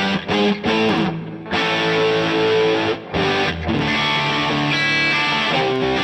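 Electric guitar played through the DVII guitar amplifier with an overdriven tone: chords strummed and held, broken by a few brief muted stops.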